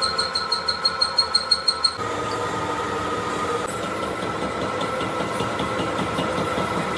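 Metal-cutting lathe machining a compressor crankshaft, metal squealing against the cutting tool. A high squeal pulses about six times a second for the first two seconds, then settles into a steady whine.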